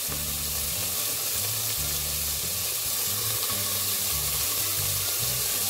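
Diced vegetables (green beans, potato, capsicum and carrot) frying in hot oil in a steel pot: a steady sizzle.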